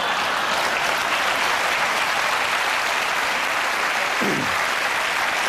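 Studio audience applauding: a dense, steady clatter of clapping that holds at an even level.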